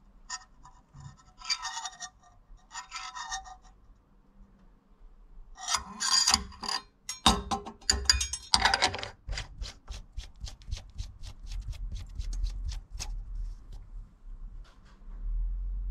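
Metal oil dipstick scraping and rubbing in the filler neck of the Aston Martin V8 Vantage's dry-sump oil tank, in short bursts. About nine seconds in, a steady run of clicks, about three a second, follows as the filler cap is screwed back on.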